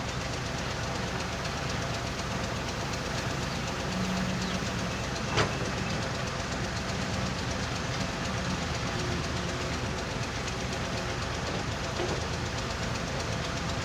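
Heavy machinery running steadily: an excavator's diesel engine and a stone-and-sand screening machine, with a continuous rumble and rattle. A single sharp knock stands out about five seconds in.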